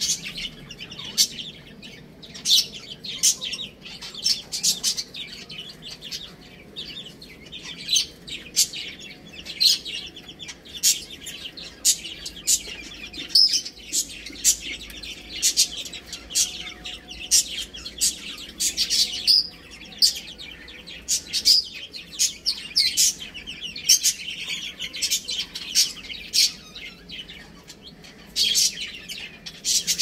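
Baby chicks peeping: a steady stream of short, high-pitched peeps, several a second, overlapping from more than one chick.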